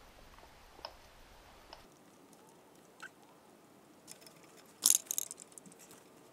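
Small hand-handling noises of parts and tools: a few faint clicks, then a sharp crunchy clatter about five seconds in, followed by a few lighter clicks.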